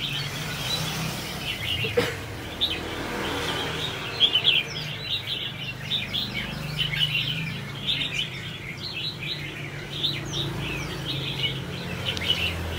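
A flock of caged red-whiskered bulbuls chirping and chattering, many short overlapping calls at once.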